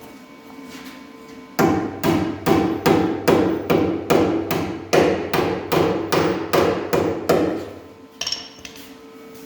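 Steady hammering on the car's sheet-metal bodywork with a metal body hammer, about fifteen even, ringing blows at roughly two and a half a second, starting about a second and a half in and stopping near the end, followed by a couple of lighter taps.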